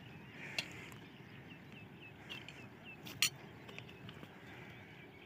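Faint open-air quiet with a small bird chirping a run of short repeated calls, about three a second, and two brief sharp clicks, the louder one a little after three seconds in.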